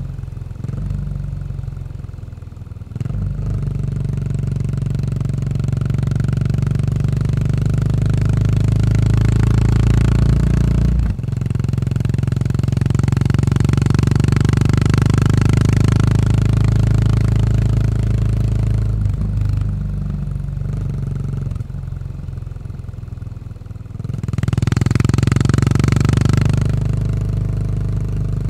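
Yamaha SR400's air-cooled single-cylinder engine running through a Goods tapered cone slip-on muffler while riding. The engine pulls harder a few seconds in and breaks off sharply for a moment before picking up again. It eases off for a few seconds after the middle, then pulls again near the end.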